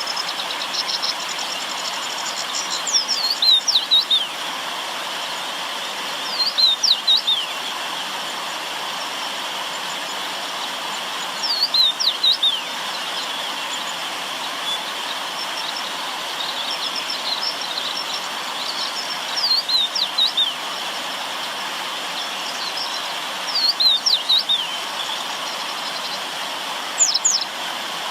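River water flowing steadily, with a songbird repeating a short phrase of quick falling high notes about every four seconds and fainter twittering in between.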